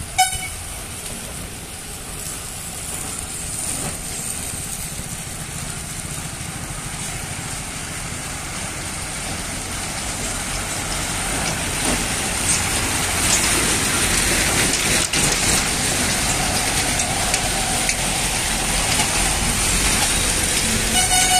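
Heavy lorry diesel engines running as a line of trucks crawls past, the rumble getting louder as they draw near. A short horn toot sounds just after the start and another at the very end.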